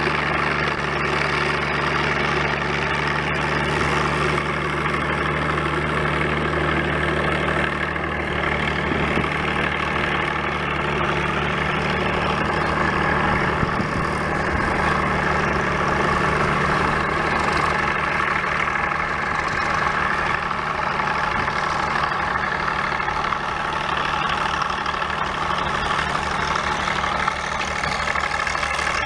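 A vehicle engine running steadily with an even drone.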